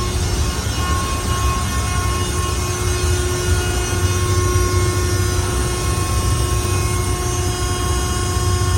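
Ship's machinery running steadily below decks, a loud low rumble with several steady whining tones over it.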